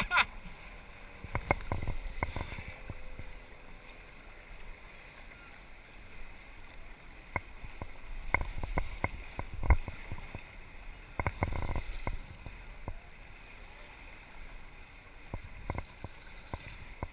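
Water rushing and splashing along the hull of a small sailing dinghy under way, with scattered sharp knocks and clicks coming in short clusters.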